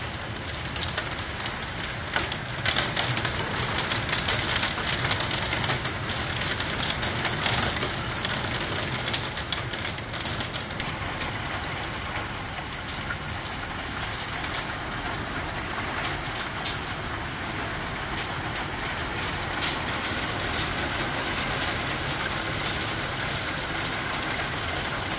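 Hailstorm: heavy rain and hail pelting down, with many sharp ticks of hailstones striking. Densest and loudest for the first ten seconds or so, then a steadier downpour.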